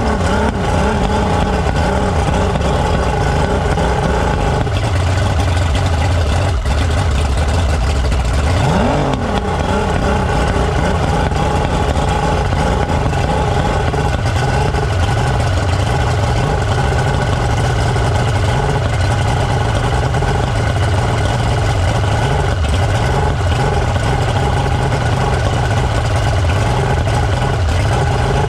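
Mercury Optimax outboard engine running: it is blipped once, briefly rising and falling in pitch, about 9 seconds in, then settles into a steady idle with a slight waver in its speed.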